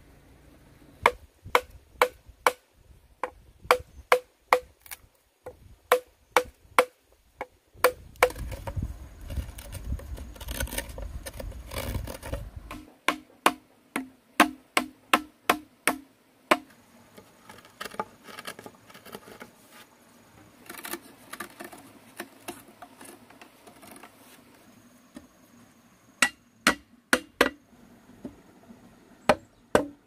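Chopping strikes on green bamboo: runs of sharp knocks about two a second, broken about eight seconds in by a few seconds of steady noise, with lighter, scattered handling sounds in the quieter stretch before the last run of strikes.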